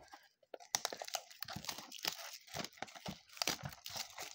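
Plastic wrapping on a box of baseball trading cards crinkling and tearing as it is ripped open by hand: a dense run of short crackles starting under a second in.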